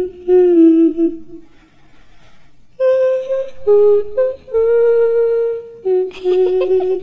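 A single voice humming a slow, wordless tune in held notes that step up and down, breaking off for about a second and a half shortly after it begins.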